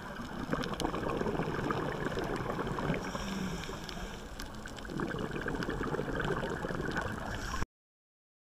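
Scuba diver's exhaled bubbles heard underwater: a muffled, gurgling rush in two long swells with a lull between, and faint scattered clicks. The sound cuts off suddenly near the end.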